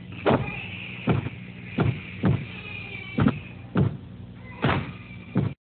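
A series of about eight dull thumps or knocks at uneven intervals, heard over a steady low hum.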